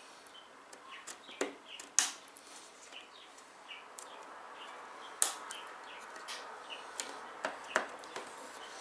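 Irregular sharp clicks and taps of computer parts being handled and fitted by hand, the loudest about two seconds in, over a faint steady hiss.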